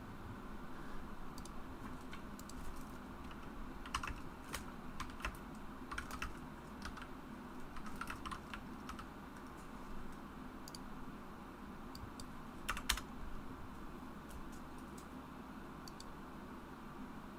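Faint, irregular typing and key clicks on a computer keyboard, with a sharper double click about three quarters of the way through.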